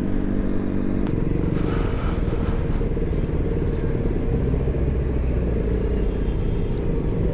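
KTM Duke 200's single-cylinder engine running at low speed in traffic, with a steady note at first that turns into a more uneven rumble about a second in.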